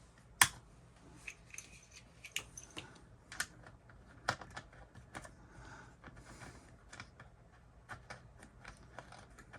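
Scattered light clicks and taps of test leads and connectors being handled and plugged in on a workbench, with one sharper click about half a second in.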